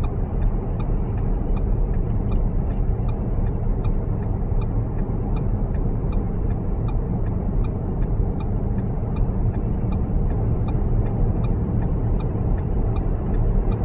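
Steady low rumble of a car driving, road and wind noise heard from inside the cabin. A faint, regular tick repeats about two and a half times a second throughout.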